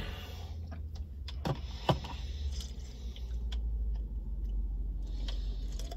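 Steady low rumble inside a car cabin, with a couple of sharp clicks about one and a half and two seconds in, the second the louder.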